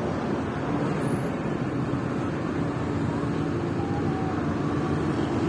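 A motor vehicle's engine running steadily, with a low hum over a noisy rumble.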